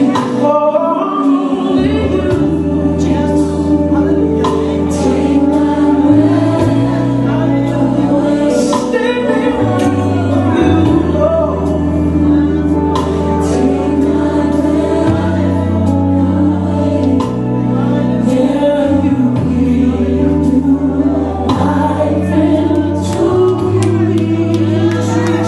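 Gospel music with a choir singing, over held bass notes that change every second or two.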